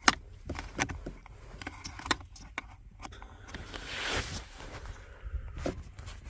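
Plastic centre-console trim of a Volkswagen Jetta being unclipped and handled: a series of sharp clicks and rattles, the loudest right at the start, with a longer scraping rustle about four seconds in.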